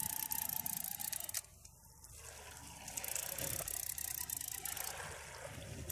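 Large conventional saltwater fishing reel clicking rapidly as line is cranked in against a hooked fish. The clicking drops out briefly about a second and a half in, then picks up again.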